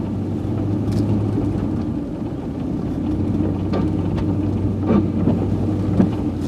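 Nissan Titan pickup driving, a steady low engine and road rumble, with a few short knocks along the way.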